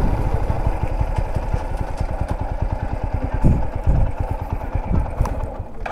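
Motorcycle engine running at low speed, easing off as the bike slows and pulls over to the kerb.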